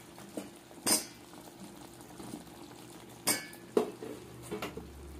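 A steel ladle knocks and clinks against a steel pot a few times while turning fried badusha in hot sugar syrup, with the sharpest clinks about a second in and twice more past the three-second mark. A faint steady low hum runs underneath.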